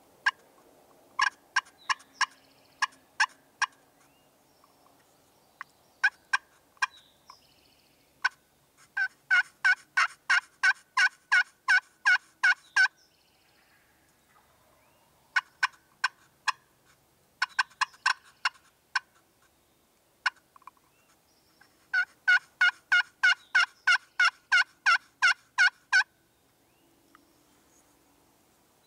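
Turkey yelping: bouts of sharp, evenly spaced notes, some slow and some fast at about four a second, with short pauses between bouts.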